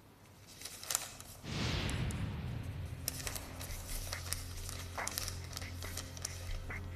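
Paper rustling and crinkling as letters are leafed through and an envelope is torn open, in short crisp crackles. About a second and a half in, a swoosh and a steady low drone of background music come in under it.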